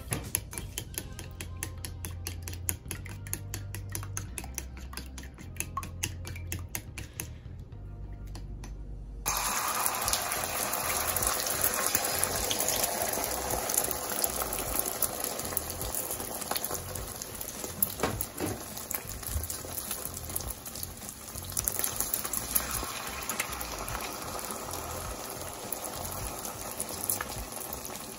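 Chopsticks whisking eggs in a ceramic bowl, a fast run of light clicks. About nine seconds in, the beaten eggs go into hot oil in a pan, and a louder, steady sizzle takes over while chopsticks stir.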